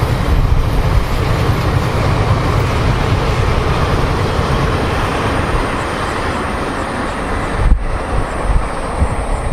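Passenger train coaches rolling past on the track: a loud, steady rumble of steel wheels on the rails that fades slightly as the train moves away. Near the end the sound drops out briefly.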